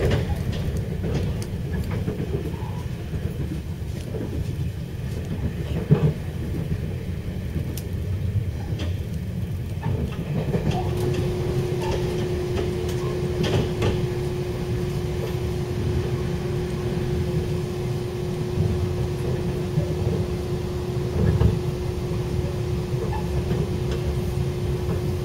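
Running noise of a passenger train heard from inside the carriage: a steady low rumble from the wheels and track. There is a sharp knock about six seconds in, and a steady humming tone joins about ten seconds in.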